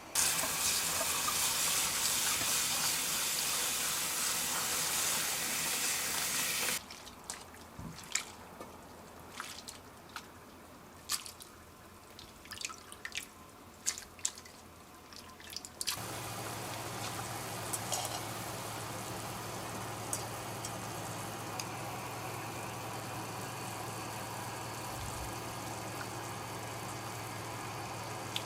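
Water running hard for about seven seconds, then cutting off abruptly to a quieter stretch of scattered clicks and knocks. Then a steady machine hum with a low tone sets in.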